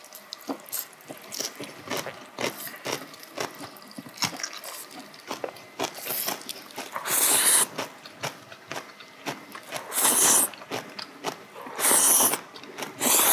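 Close-miked eating: wet chewing and mouth clicks throughout, with four loud slurps of noodles, the first about seven seconds in and the last near the end.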